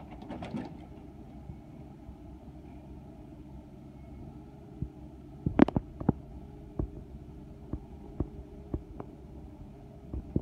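John Deere 1110E forwarder's diesel engine running steadily while the crane works, with a cluster of loud knocks about halfway through and single knocks every second or so after, as the grapple handles logs.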